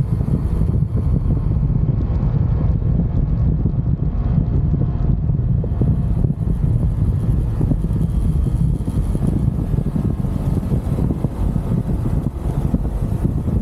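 UM Renegade Commando 125 motorcycle under way, its engine running steadily under a heavy rumble of wind buffeting the handlebar-mounted microphone.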